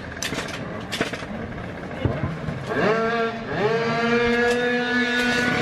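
A few light clicks and knocks, then a racing scooter engine about three seconds in: it revs up, dips, revs again and holds a steady high-pitched drone.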